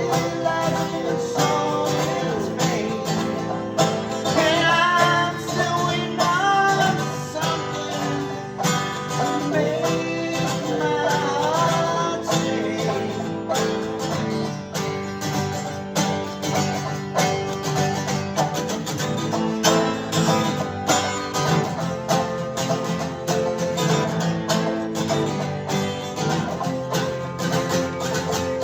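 Live acoustic bluegrass-style music: plucked string instruments picking a steady, busy rhythm, with a melody line that bends and slides in the first half.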